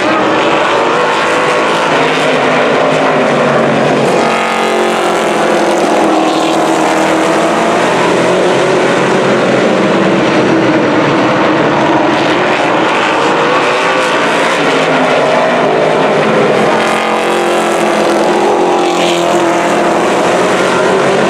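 A field of outlaw late model race cars with V8 engines running around a paved oval. The sound is loud and steady, and swells with a bending pitch twice, about four seconds in and again near the end, as cars pass close by.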